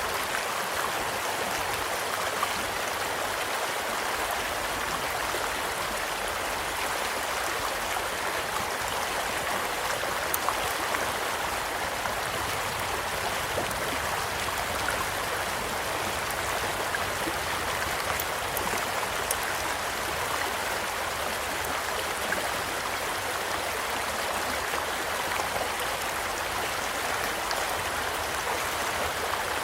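Small stream flowing steadily, with scattered crackles and pops from a campfire, a few sharper pops about ten and eighteen seconds in.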